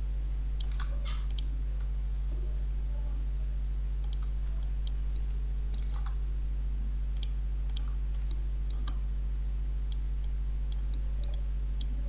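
Scattered clicks of a computer mouse over a steady low electrical hum.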